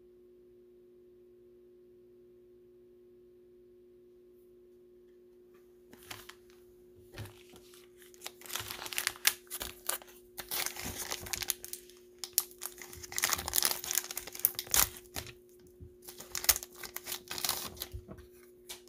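Plastic packaging crinkling and rustling in irregular bursts, starting about six seconds in after a stretch of faint steady hum, as card supplies are handled and an Ultra Pro One-Touch magnetic card holder is unpacked to protect a freshly pulled card.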